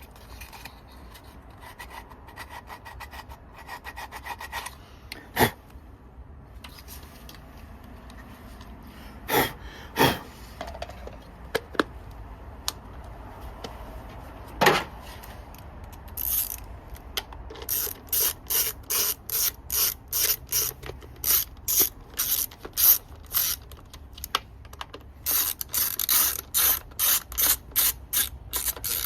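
Hand ratchet wrench being worked in quick strokes, its pawl clicking. A few sharp knocks of metal tools come first, then a steady run of ratchet strokes, about two or three a second, through the second half.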